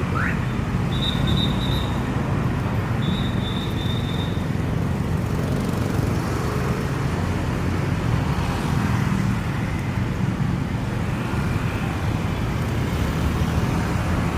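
Steady road traffic on a busy city street, a continuous rumble of passing cars and motorbikes. A brief rising chirp sounds at the very start, and two short high-pitched tones in the first few seconds.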